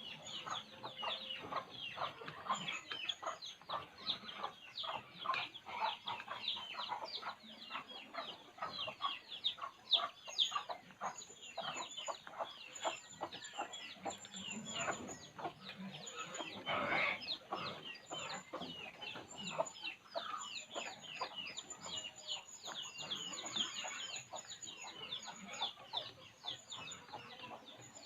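A bird calling in a quick, continuous run of short, downward-sliding chirps, several a second.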